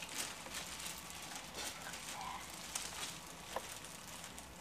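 Cellophane wrapping on an Easter basket crinkling and rustling as it is handled and pulled open, with scattered sharp crackles.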